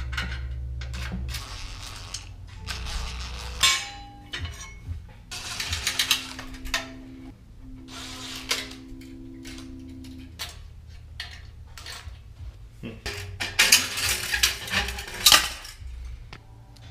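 Metal clinking and clattering as the steel heat shields and pipe clamps are worked loose and taken off a motorcycle's exhaust pipes: many short, irregular clanks and rattles.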